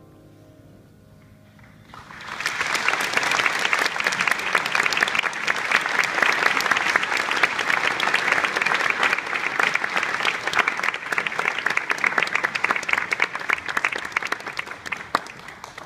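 Audience applauding, breaking in about two seconds in with dense clapping that thins out near the end.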